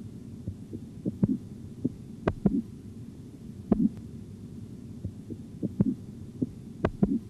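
Korotkoff sounds from a stethoscope over the brachial artery as the blood-pressure cuff deflates: soft, dull thuds about every second and a quarter, the first regular tones that mark systolic pressure. Sharper irregular clicks fall between them, over a low steady hum.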